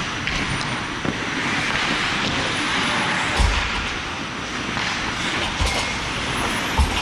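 Steady scraping rush of ice skates on a rink surface, heard close up from a body-worn camera, with three dull low thumps about halfway through and near the end.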